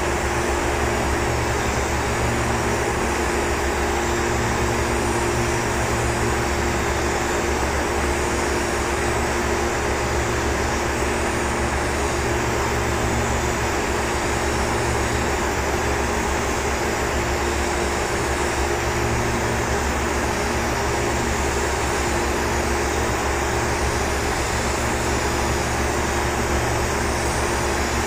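Steady, unbroken hiss with a constant low hum underneath, from compressed-air spray-painting equipment and hangar ventilation running while primer is sprayed onto aluminium.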